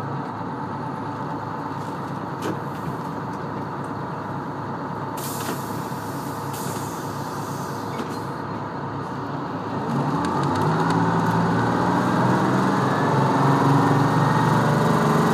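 GM New Look T6H-5307N bus's diesel engine idling, heard from inside the bus, with a short burst of air hiss about five seconds in. About ten seconds in, the engine revs up with a rising pitch and grows louder as the bus pulls away.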